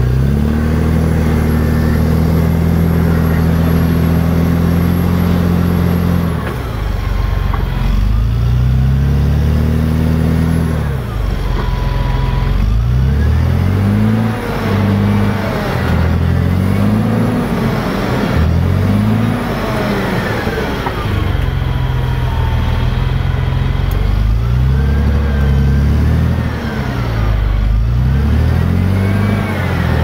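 CAT D7R bulldozer's diesel engine running under load from the operator's seat. Its note holds steady for the first several seconds, then rises and falls again and again as the blade pushes into the soil.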